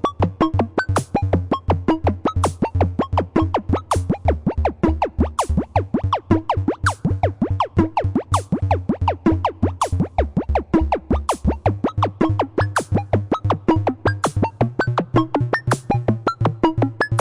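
Upbeat comical electronic music: a fast run of short plucky synthesizer notes over a bass line that steps between notes every couple of seconds, with a drum-machine tick about every second and a half.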